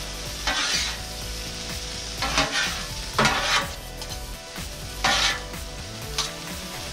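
Two metal spatulas scraping and tossing a chicken, pepper, mushroom and tomato mix on the steel top of a Blackstone griddle, with the food sizzling. There are several short scrapes, about half a second, two and a half, three and five seconds in.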